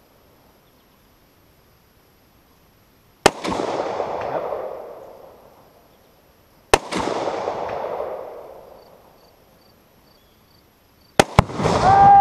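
Rifle shots at a tannerite target, each crack followed by a long rolling echo: two shots about three and a half seconds apart, then near the end two cracks in quick succession running into a louder, longer blast as a voice starts to shout.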